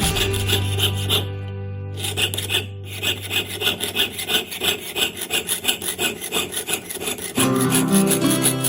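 Quick back-and-forth strokes of a hand tool working metal, with two short pauses in the first three seconds.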